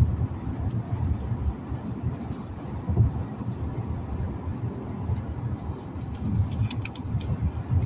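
Road and engine noise inside a car moving at highway speed: a steady low rumble, with a few light clicks near the end.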